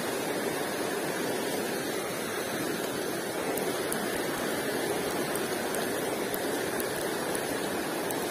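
Steady rush of river water tumbling over a shallow rocky riffle.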